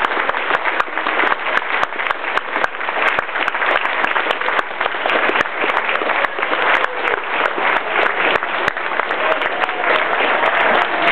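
Audience applauding: dense, steady clapping from a large seated crowd.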